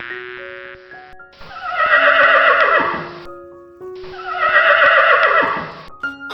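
A horse whinnying twice, each call about two seconds long and falling in pitch, over background music with steady held notes.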